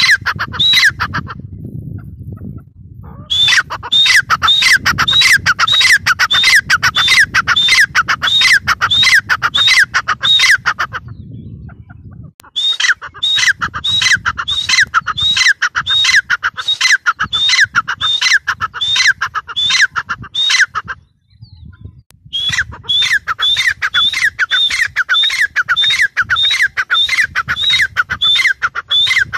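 Gray francolin calling: a loud, fast series of repeated shrill notes, each sliding down in pitch, about two or three a second. The calls come in three long bouts with short pauses between them.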